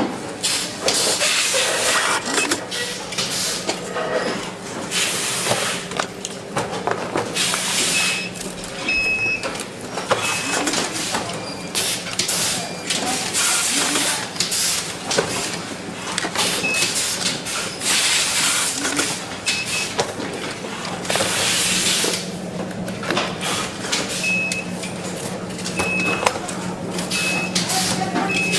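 Power bank assembly line noise: a steady low hum under dense clatter and repeated bursts of hiss, with short high electronic beeps now and then, some in quick pairs.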